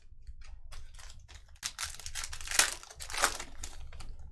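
Plastic wrapping of trading-card packs being crinkled and torn open in a rapid run of sharp crackles. It is loudest in the middle, with two louder rips close together.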